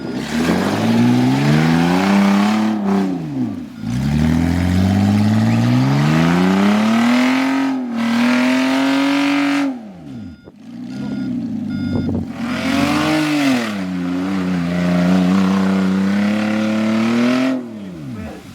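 Off-road 4x4 engine revving hard in repeated long bursts, its pitch climbing and falling as the throttle is worked, with a lull about ten seconds in. A few short electronic beeps sound during the lull.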